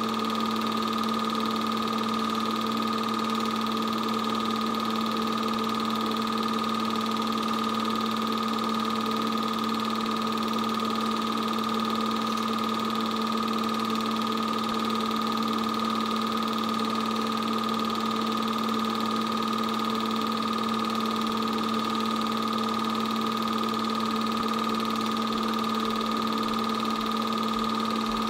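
8mm film projector running: a steady motor and fan hum with several constant tones, unchanging throughout.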